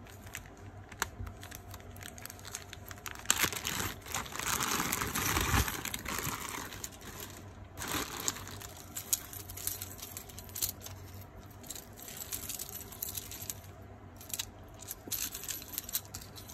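Packaging crinkling and rustling as a piece of jewelry is handled and taken out of a mystery bag, with small scattered clicks and clinks of metal and beads. The crinkling is loudest from about three to seven seconds in.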